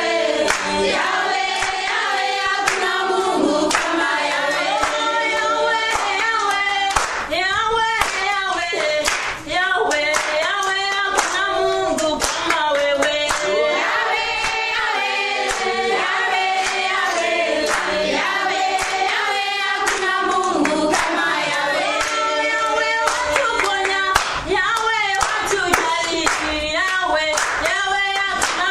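A group of voices singing together, accompanied by rhythmic hand clapping.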